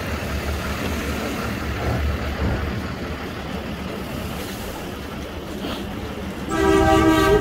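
Steady low city traffic rumble as a large SUV drives past close by. About six and a half seconds in, a car horn starts sounding, a loud steady blare that is still going at the end.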